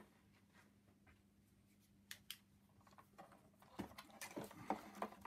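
Near silence with faint clicks and light knocks of hands handling the plastic casing and parts of an opened steam vacuum cleaner, bunched together about four seconds in, over a faint steady hum.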